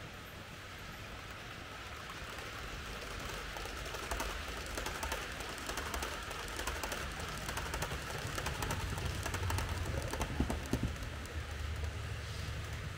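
Märklin H0 model train running along the track and growing louder as it comes closer: a low rumble under a hiss, with rapid fine ticking from the wheels on the rails.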